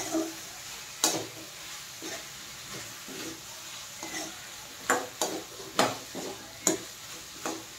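Metal spoon stirring diced vegetable in a steel kadhai, clinking and scraping against the pan at irregular intervals, more often in the second half, over a faint steady sizzle of frying oil.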